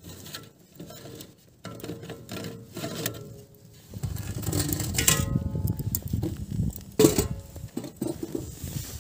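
A wire smoking rack clinking and scraping against the rim of a steel smoker tub as it is lifted out. Two sharp metallic clanks, about halfway through and near the end, ring briefly, over the rustle of the handling.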